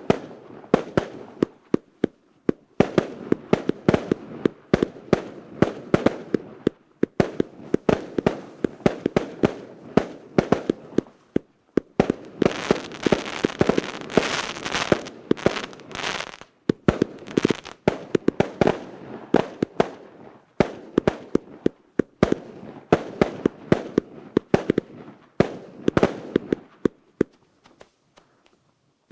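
Russkie Ogni 'Novogodny Bespredel' RK8064 firework battery firing: a rapid, continuous string of launch thumps and aerial bang reports, several a second. A dense crackling, hissing stretch comes in the middle, and the shots thin out near the end.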